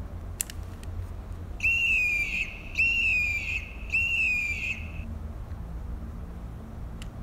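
Kenner Aliens Electronic Swarm Alien toy's sound chip playing its electronic attack cry three times in a row: a high, piercing screech that falls in pitch, about a second each, from a small toy speaker. The toy still works on its original batteries.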